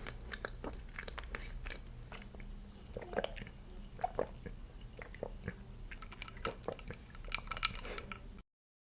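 Close-miked chewing and wet mouth clicks of someone eating a soft raspberry dessert, in scattered small smacks with a louder burst about seven and a half seconds in. The sound then cuts off abruptly just before the end.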